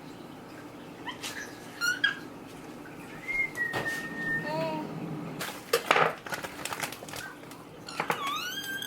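A person whistles a short, steady note, and a baby answers with short vocal sounds. Near the end the baby gives a longer call that rises and then falls.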